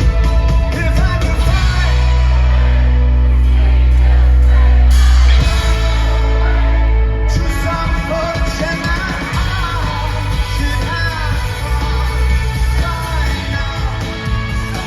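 Live rock band playing with singing. A loud low bass note is held and swells for a few seconds, then the band changes about five seconds in.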